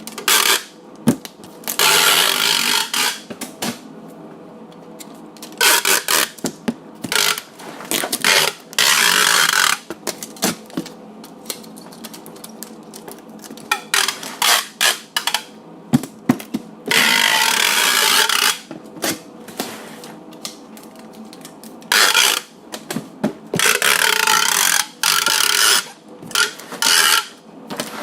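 Packing tape pulled off the roll again and again: loud tearing screeches lasting about a second or more, with many short rips and snaps in between.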